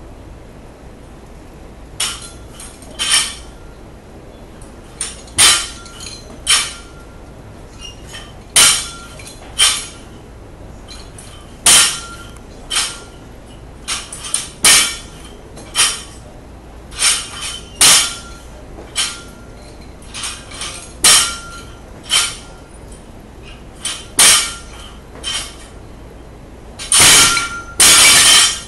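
Loaded barbell with bumper plates clanking through repeated snatch reps: sharp metallic clanks with a short ring, mostly in pairs about a second apart, repeating every two to three seconds. Near the end comes a longer, louder clatter as the bar is put down.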